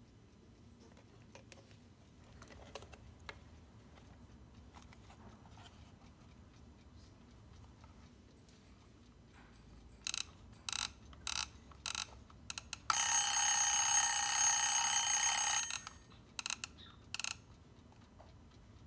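The alarm of a 1960s Westinghouse RLA 1082A travel clock radio sounds in several short bursts, then runs steadily for about three seconds, then gives three more short bursts. Faint clicks of the case being handled come before it.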